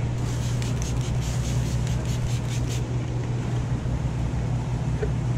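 A steady low machine hum, with a quick run of about ten short, high hissing strokes over the first three seconds.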